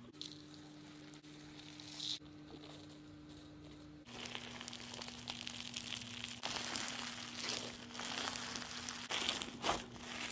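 Slime being squeezed and handled, making crackly, crinkling sounds that grow louder and denser from about four seconds in.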